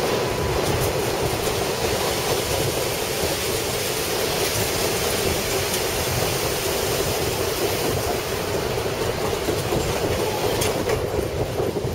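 Passenger train running steadily along its line, heard from inside the carriage: a constant rushing rumble of the wheels and carriage, with a few faint clicks.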